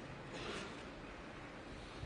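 Faint, hushed arena room tone around a snooker table, with one short soft rustle about half a second in.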